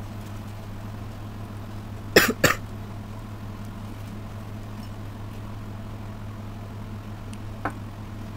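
A man coughs twice in quick succession about two seconds in, over a steady low electrical hum.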